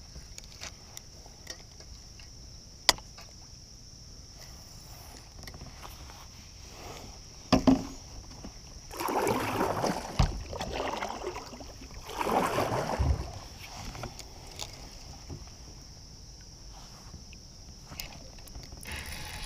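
Kayak paddling: two water swishes a few seconds apart and a couple of knocks against the kayak, over a steady high insect drone.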